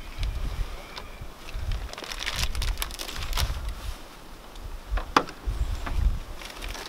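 Rustling and crinkling of a chemical protective overgarment and gear as a masked, gloved soldier bends and handles equipment, with bursts of low rumble. There is a sharp click about five seconds in.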